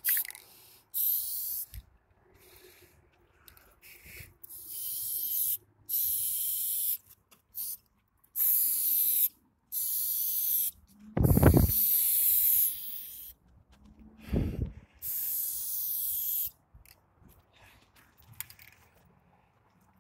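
Aerosol spray-paint can hissing in short bursts, about seven sprays of half a second to two seconds each with brief pauses between them, as lines are painted on a concrete wall. Two low thuds come near the middle.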